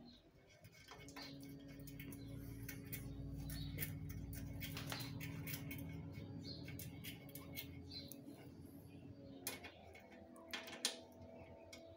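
Small metallic clicks and ticks of a V-brake arm's mounting bolt being threaded in by hand and then turned with a folding Allen-key multi-tool, a couple of louder clicks near the end, over a faint steady hum.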